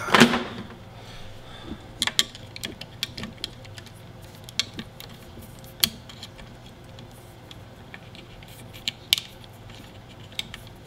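Scattered small clicks and taps of handling as a plastic zip tie is worked through holes in a circuit board, with a screwdriver guiding it through. A short scraping rustle right at the start is the loudest sound.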